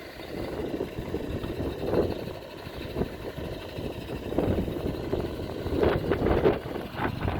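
Truck engine running, with uneven noise that swells about two seconds in and again around six seconds.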